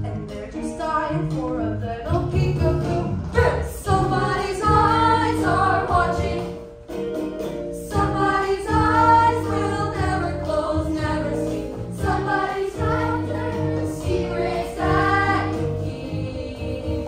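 A musical theatre number: a chorus of young voices singing together over instrumental accompaniment, with a few brief pauses between phrases.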